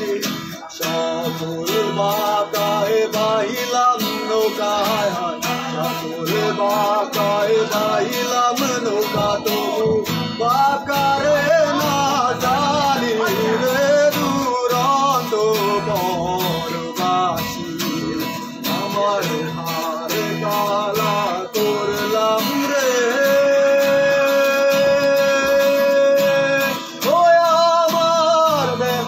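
A man singing a Bengali song over a strummed acoustic guitar, the melody winding up and down, with one long held note about three-quarters of the way through.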